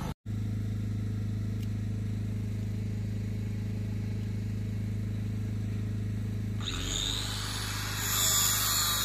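A steady low machine hum. About seven seconds in it changes, and a louder hissing noise builds.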